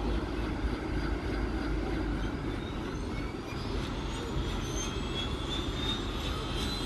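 Single-engine helicopter idling with its turbine running and main rotor turning: a steady rumble under a thin high whine that climbs slowly in pitch.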